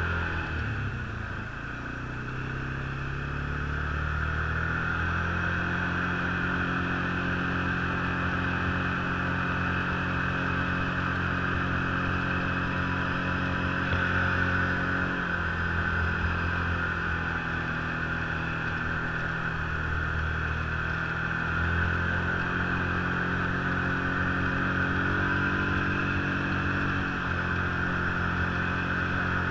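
Snowmobile engine running under way, easing off about a second in and then climbing back up in pitch over the next few seconds, with a few smaller changes in engine speed later.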